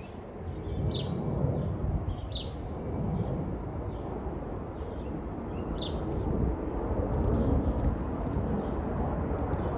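Low jet rumble from a Boeing 737-800's CFM56-7B turbofan engines as the airliner flies overhead, growing steadily louder. A few short bird chirps sound over it.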